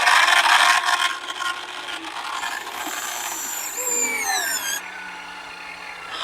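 Small electric motors and gears of a radio-controlled construction model whirring and whining, with the whine falling in pitch about four seconds in as the motors slow, then a quieter steady hum.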